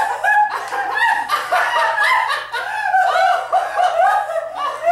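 A man and a woman laughing continuously, a stream of short laughs one after another with no words.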